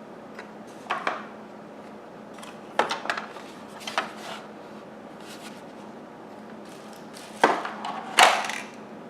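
Vacuum parts and packaging being handled: a handful of separate knocks and short scrapes, the loudest pair near the end, over a steady low hum.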